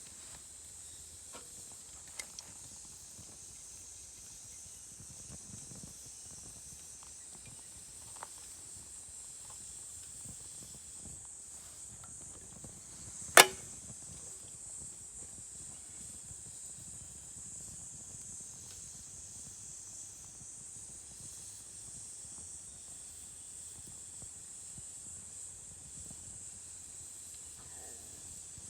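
Wood campfire burning with a few small crackles and one loud, sharp pop about halfway through. A steady high insect drone runs underneath.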